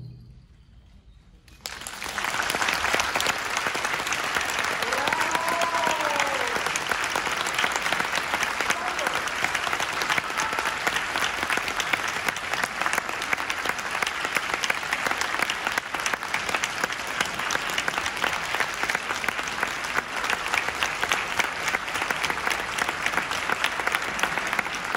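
Audience applause, starting suddenly about two seconds in and going on steadily, with one brief voice call rising and falling in pitch about five seconds in.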